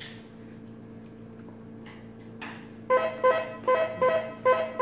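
Tamiya MFC-03 sound unit in a 1/14 RC Scania truck, just switched on: a click and a low steady electronic hum, then from about three seconds in a repeating electronic beep-tone pattern, about two and a half pulses a second.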